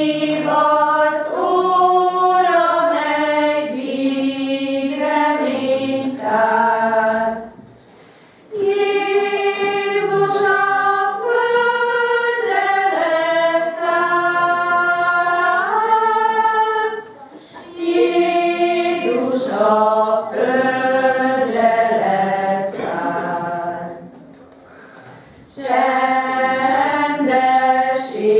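Choir singing a song in held, sustained phrases, breaking off briefly three times between them.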